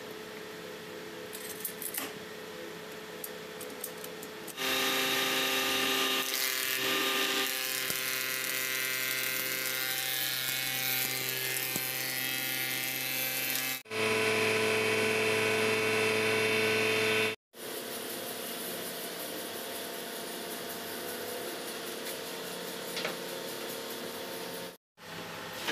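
Woodworking machines running in a series of short clips that cut abruptly from one to the next. A thickness planer's motor runs at first; from about five seconds in, a louder cutting sound comes in as wood is machined.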